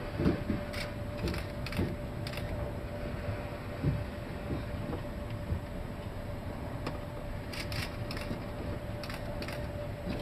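Ship creaking and knocking as it works in heavy seas: irregular creaks and sharp clicks over a steady low rumble and a faint hum.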